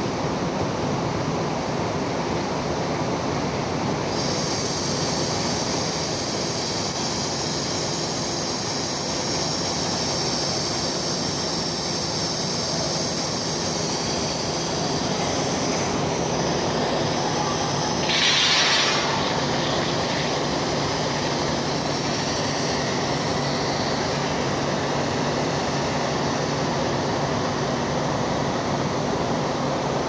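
Blast furnace taphole during tapping: a steady, loud rushing noise with a high hiss and screech that comes in about four seconds in, and a brief louder burst a little past halfway.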